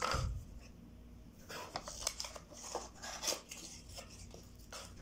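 A small cardboard box set down on a table with a knock, followed by scattered light clicks and rustles of cardboard packaging being handled.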